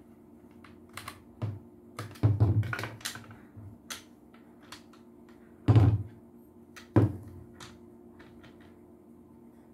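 Plastic housing of a handheld vacuum cleaner being handled and worked on: scattered clicks and knocks, with a cluster a couple of seconds in and two sharp knocks around six and seven seconds in.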